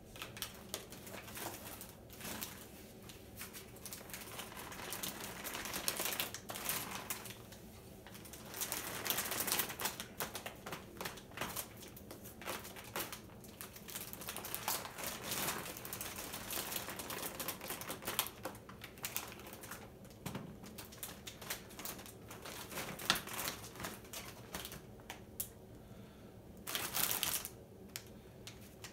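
Plastic-wrapped grocery packs crinkling and rustling as they are handled in and out of a fabric bicycle front bag, with many small clicks and taps. A brief louder rustle comes near the end.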